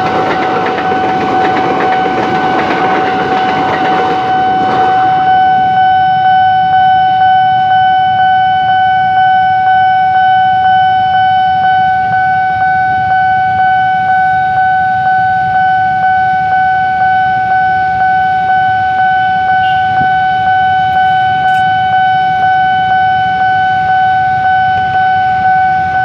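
Railway level-crossing alarm sounding: a steady electronic tone that pulses in an even rhythm, kept on because a second train is approaching. For the first five seconds it is joined by the rumble of a KRL electric commuter train passing the crossing.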